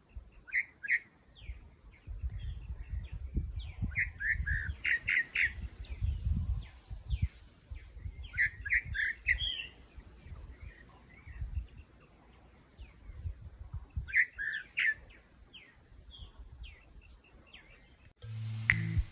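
Wild birds chirping in four short clusters of quick, high notes, over a low rumbling noise. Music comes in near the end.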